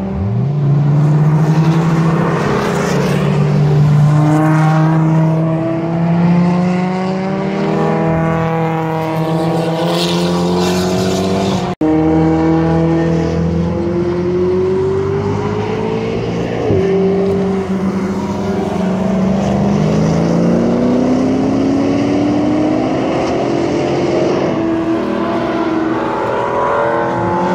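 Sports car engines accelerating past on a race track, their pitch rising again and again through the gears with quick drops at the shifts. The sound breaks off for an instant about twelve seconds in, then more cars follow.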